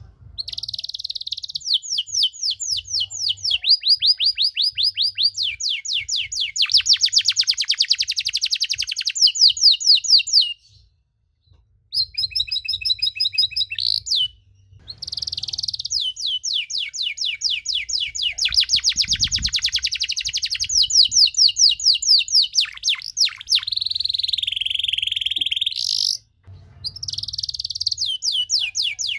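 Domestic canary singing a long song of fast trilled phrases, one run of rapid high notes after another with the pitch shifting between phrases. It breaks off briefly three times.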